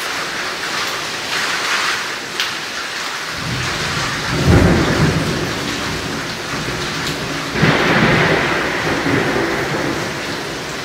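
Steady rain with thunder. A low roll of thunder builds from about a third of the way in, and a second, sharper clap breaks about two-thirds of the way through, then rumbles away slowly.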